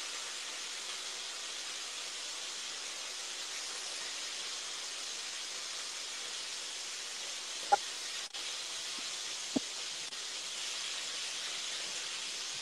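Chicken pieces sizzling in a hot frying pan, a steady hiss, with two short clinks about eight and nine and a half seconds in.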